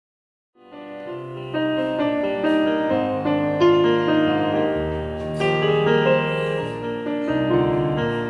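Background piano music, starting after a brief silence about half a second in.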